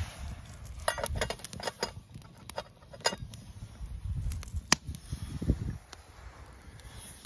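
Metal clinks of a camp pot and its lid as the lid is put on the pot of snow set over the fire to melt. A quick run of clinks in the first few seconds and one sharp clink near the middle, over low rumbling handling noise.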